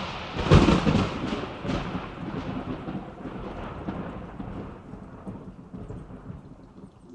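Thunderclap with rain: a sharp crack about half a second in, then a rolling rumble with a hiss of rain that slowly dies away over several seconds.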